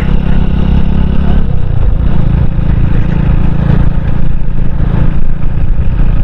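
Honda Hornet 160R motorcycle's single-cylinder engine running steadily while riding along at road speed, easing off briefly about a second and a half in before pulling steady again.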